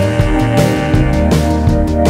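Background music with a steady drum beat and sustained pitched instruments.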